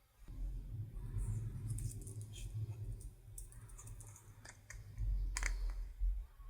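Slime being worked by hand, giving off scattered sticky clicks and crackles, one sharper snap about five seconds in, over a low rumble of handling.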